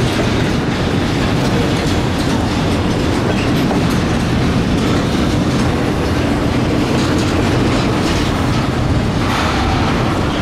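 Freight train's container cars rolling past at close range: a loud, steady rumble and clatter of steel wheels on the rails, with the clickety-clack of wheels over rail joints.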